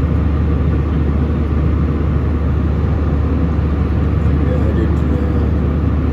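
Steady cabin noise of an airliner in flight: a constant low engine and airflow rumble.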